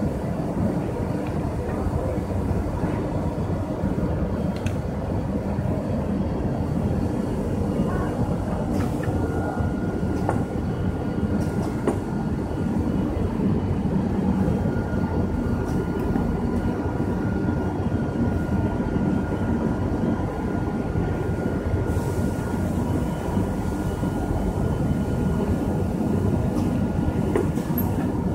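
Steady rumble of workshop machinery, with a thin steady whine through the middle and a few light knocks.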